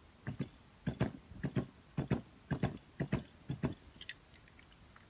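Aerosol spray-paint can being shaken by hand, the mixing ball inside clacking on each stroke. There are about seven shakes, roughly two a second, often heard as double knocks, and they stop a little over three and a half seconds in.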